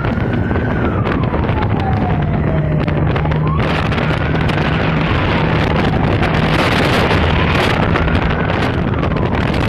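Fire engine siren wailing, its pitch rising and falling slowly about every three seconds, over a steady engine hum and wind rushing on the microphone from the moving truck.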